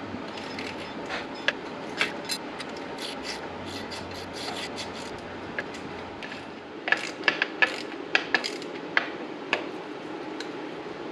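Short metal clicks and scrapes from hand tools tightening the mounting bolts of a motorcycle license plate holder, coming irregularly and bunched most densely near the end.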